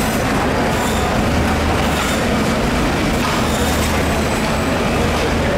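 Loud, steady machine-like drone: a constant low hum under a noisy hiss, with a few faint clinks.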